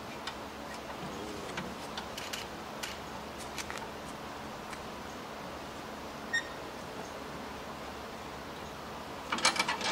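Metric Allen wrench turning the belt-tensioning bolt on a concrete grinder's motor mount: faint scattered metal-on-metal clicks over low room hiss, with a quick run of louder clicks near the end. The bolt is being tightened to pull the motor back and tension the drive belts.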